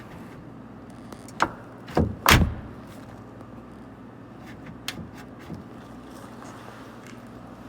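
Three sharp knocks and clicks from handling car door parts, the loudest about two seconds in, then a few lighter clicks near the middle, over a steady low hum.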